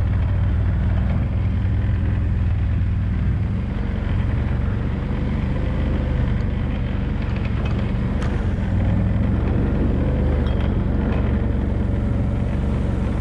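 ATV engine running steadily while being ridden, a low even drone with slight rises and falls in pitch.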